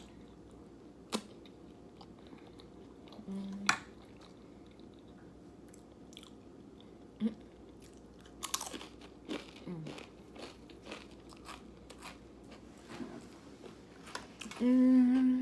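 A person chewing crunchy food with the mouth close to the microphone, with scattered sharp mouth clicks and crunches. Near the end comes a short, loud, steady-pitched vocal sound from the eater.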